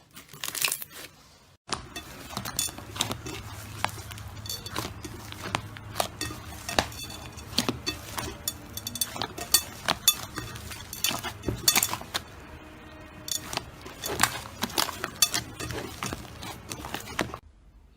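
Slime being squeezed and poked by hand, giving many quick, irregular crackling clicks and pops, typical of crunchy slime. It stops suddenly near the end.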